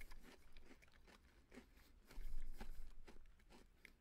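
Close-miked chewing of a crisp, buttery chocolate-chip coconut cookie, with small irregular crunches throughout. A louder low rumble comes about two seconds in.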